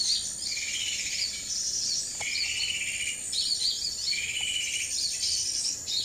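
Wild birds calling: one call repeats about every two seconds, with quicker high chirps around it, over a steady high-pitched insect drone.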